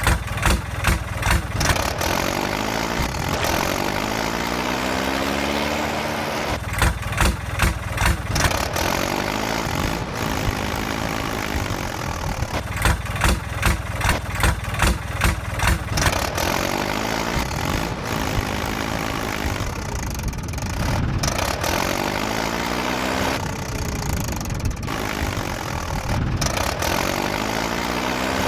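Tractor engine sound, chugging in bursts of about three beats a second and rising and falling in pitch in between.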